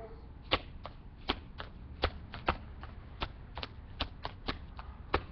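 Step dancing: a rapid, uneven rhythm of sharp claps, body slaps and foot stomps on concrete, about three strikes a second.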